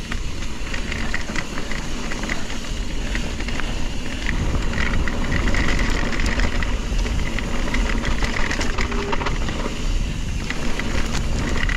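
Mountain bike descending a rough trail at speed: wind rumbling on the microphone, with tyres clattering over rocks and roots and the bike rattling in many sharp clicks.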